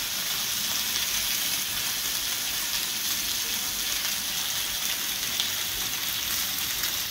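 Lamb chops and lamb shish kebabs sizzling steadily on a hot electric indoor grill plate.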